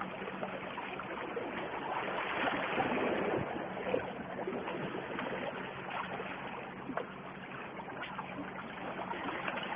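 Sea water washing and lapping against shoreline rocks: a steady rushing with small scattered splashes.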